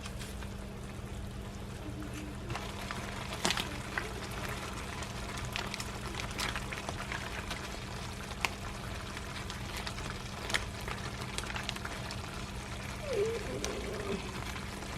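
Kitchen sounds: an even watery hiss over a steady low hum, with scattered sharp clinks of utensils.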